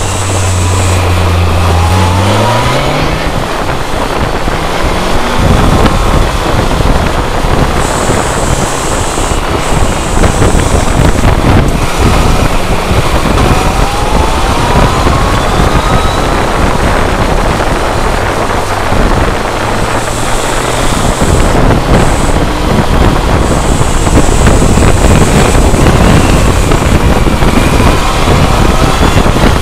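On-board sound of a motorcycle's inline-four engine under way, its note climbing as it revs up in the first few seconds. Wind rushing over the camcorder's microphone then mostly covers the engine, which comes through steady again briefly about twenty seconds in.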